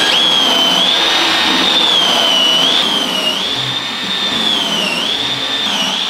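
Cordless drill in a drill guide boring a spindle hole into oak flooring: a steady high motor whine that sags in pitch several times as the bit bites into the wood and recovers.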